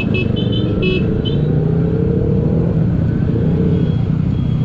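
Riding on a Honda PCX150 scooter: a loud, steady rumble of engine and road noise, rising a little in pitch around the middle. In the first second or so there are several short horn beeps.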